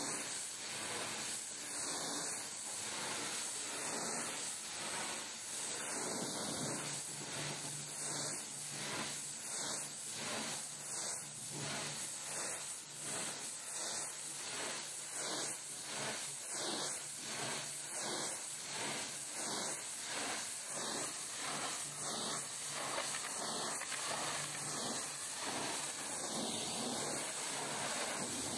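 High-pressure washer jet hissing steadily against a truck's tarpaulin curtain side, blasting off mud. The spray rises and falls regularly, about every second and a half.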